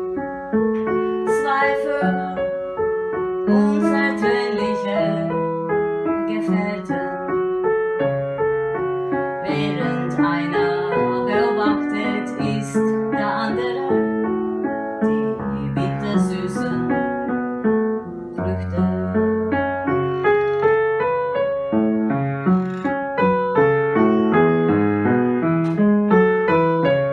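Instrumental piano music: a steady flow of notes over low held bass notes.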